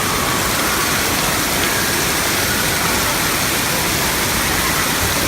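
Steady, loud rush of splashing water from water-park features, with faint distant voices calling over it.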